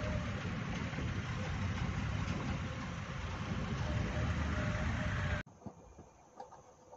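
Renault Triber driving slowly over a rough dirt track, heard from inside the cabin: engine and heavy low road noise from the tyres and suspension on loose stones. About five seconds in it cuts off abruptly to much quieter outdoor sound with a few faint clicks.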